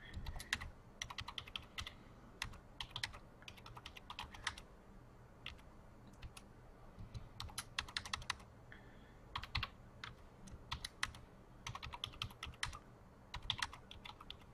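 Computer keyboard typing, quick runs of keystrokes broken by short pauses, the longest about a third of the way in.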